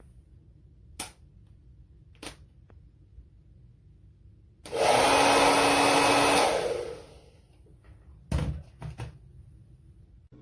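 BaBylissPRO Nano Titanium Portofino 2000-watt hair dryer switched on for about two seconds: a loud, steady rush of air with a low hum. It then winds down as it is switched off. Sharp clicks come a few times before and after.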